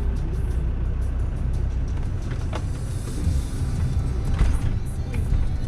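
Land Rover Discovery 2's Td5 five-cylinder turbodiesel idling low as the vehicle rolls downhill on engine braking, with a few knocks from the body and suspension over rough ground.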